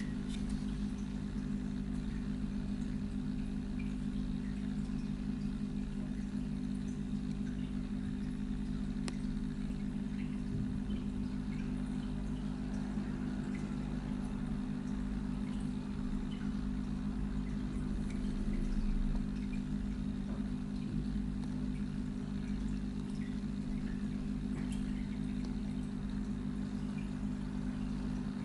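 Aquarium filter pump humming steadily, with a faint trickle of moving water and a few faint clicks.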